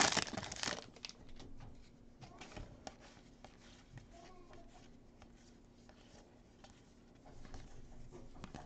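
Foil trading-card pack wrapper crinkling as it is torn open, dying away about a second in, then soft faint rustling and flicking of baseball cards being handled and sorted.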